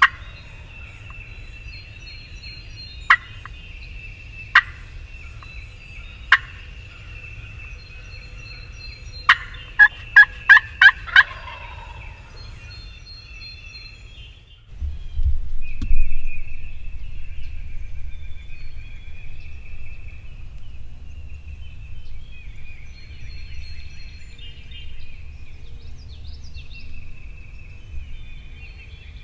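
Wild turkey calls: three single sharp notes a second or two apart, then a quick run of about six calls. About halfway through, a thump and a low rumbling noise set in and carry on.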